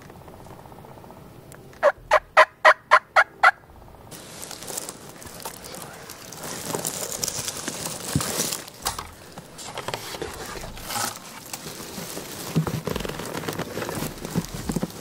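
A wild turkey yelps about seven times in a quick, even run, roughly four notes a second. This is followed by rustling and crunching of dry leaves and twigs as someone creeps through the undergrowth.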